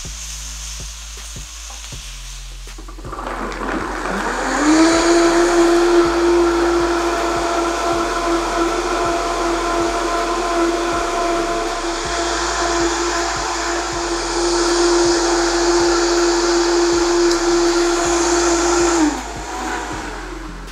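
Vitamix high-speed blender running on a batch of cashew cream (raw cashews and water). It spins up with a rising whine about three seconds in, holds a steady high-speed whine, and winds down and stops near the end; a pan sizzles faintly before the motor starts.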